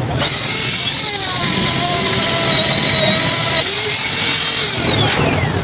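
High-speed air-powered workshop tool running with a steady high-pitched whine. Its pitch sags while it works under load, picks up again when freed, then falls away as it spins down near the end.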